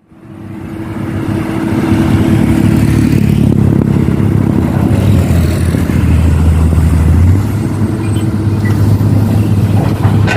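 Heavy diesel engine of the excavator or dump truck running steadily, fading in over the first two seconds, its note shifting about seven seconds in. Some clattering near the end.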